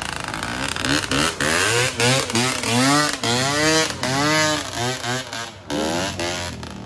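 Motorcycle engine revving up and down in quick repeated swells, about one every half second to second, then easing off about five and a half seconds in.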